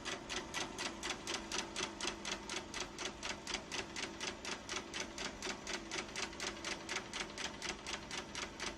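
Rapid, even clicking, about five clicks a second, over a faint steady hum.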